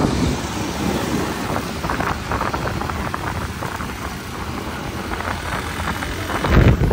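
Wind buffeting the microphone of a moving motorcycle, with road noise underneath; the low rumble grows louder near the end.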